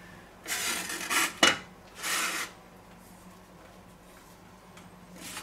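Metal pizza peel halves scraping across a floured wooden cutting board in two short rasping slides, with one sharp metallic clack between them as they are pushed together.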